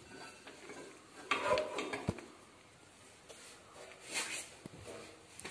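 A few irregular knocks and rattles of metal parts being handled on a grinding machine that is switched off, the loudest about a second and a half in and about four seconds in.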